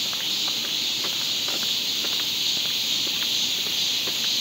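A steady, high-pitched insect chorus hissing in the background, with faint scattered small clicks and rustles.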